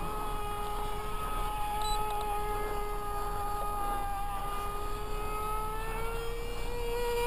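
Small two-stroke nitro glow engine (an SH .07 converted from an RC car, with a tuned pipe and a 5x3 prop) running at full throttle on a model plane in flight: a steady high-pitched whine. Its pitch rises a little near the end.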